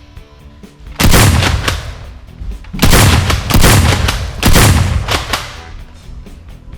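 Four loud, booming gunshot-like blasts: one about a second in, then three more close together between about three and four and a half seconds, each dying away over about half a second. Background music plays underneath.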